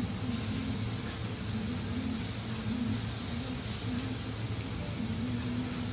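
Meat and seafood sizzling on a hot teppanyaki steel griddle: a steady hiss, with a low wavering hum underneath.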